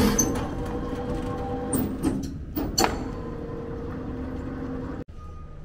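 Airport check-in baggage conveyor belt running with a steady motor hum as it carries an aluminium hard-shell suitcase away, with a few sharp knocks and clacks in the first three seconds. The sound stops abruptly about five seconds in.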